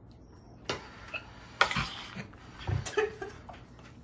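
A serving utensil and dishes clinking and knocking against a metal casserole pan and plates as baked ziti is dished out. There are about half a dozen separate clinks and knocks, the loudest about one and a half seconds in, with a dull thump near the end.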